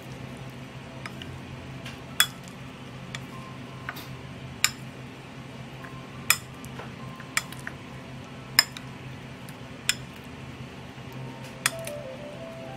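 A metal spoon stirring cauliflower florets through a thick batter on a ceramic plate, clinking sharply against the plate about seven times at uneven intervals, over a steady low hum.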